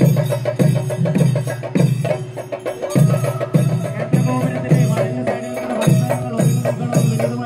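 Kerala temple festival percussion ensemble playing: heavy drum strokes a little under two a second, with cymbals clashing on the beat. A held tone sounds over the drumming through the middle.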